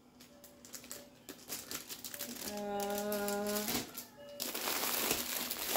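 Plastic packaging rustling and crinkling as wrapped items are handled, with scattered light clicks, denser and louder in the last second and a half. A short steady hum from a voice about midway.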